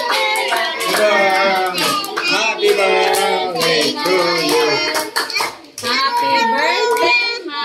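A group of children and adults clapping their hands, with voices singing and calling out over the claps.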